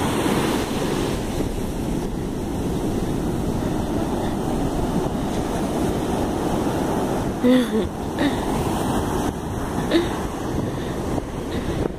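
Heavy surf breaking and washing up the beach, a steady rushing noise, with wind buffeting the microphone. A brief call-like sound rises out of it about seven and a half seconds in.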